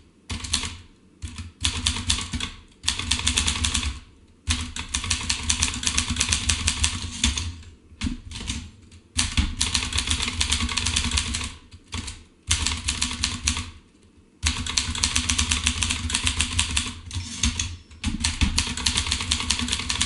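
Groma Kolibri manual portable typewriter being typed on: fast runs of key strikes and typebar clacks lasting a few seconds each, separated by short pauses.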